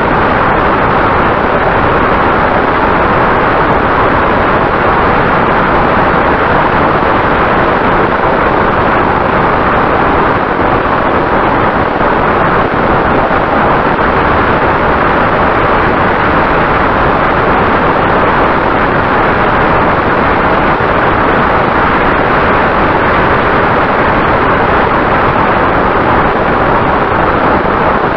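Steady loud rush of wind and engine noise from a vehicle travelling at speed, unbroken throughout, with a faint constant hum beneath it.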